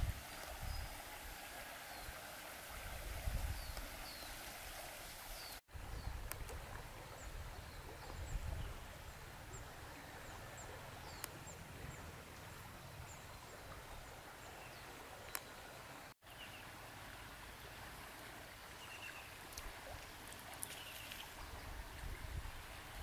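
Quiet riverside ambience: a steady hiss with small birds chirping faintly now and then, and a few soft low rumbles. The sound cuts out for an instant twice.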